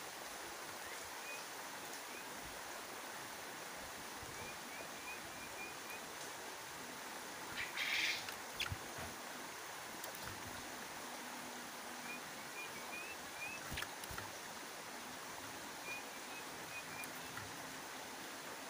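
Javan grey-throated white-eye (opior Jawa) giving short series of faint, high chirps, several quick notes at a time, over a steady background hiss. About eight seconds in there is a brief louder rustling burst, followed by a few sharp knocks.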